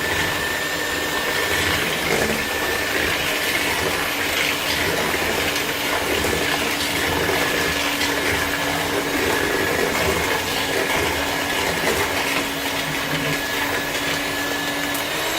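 Electric mixer running at one steady speed, a constant motor whine over the churning of the beaters, beating eggs as sugar is added. It cuts off abruptly at the very end.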